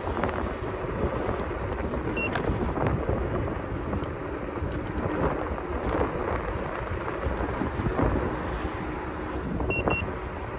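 Wind buffeting the microphone and road rumble from an electric scooter riding along a city street. Brief high electronic beeps sound about two seconds in and twice close together near the end.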